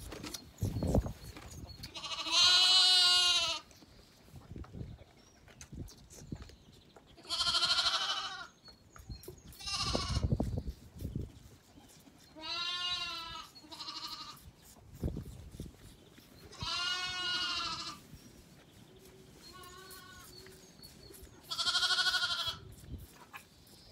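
Lambs bleating: about seven quavering, wavering bleats, each around a second long, coming every few seconds, with a few low knocks between them.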